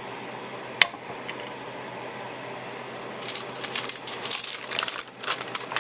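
Craft supplies being handled on a table: a single sharp click about a second in, then light rustling and small clicks through the second half, over a steady hiss.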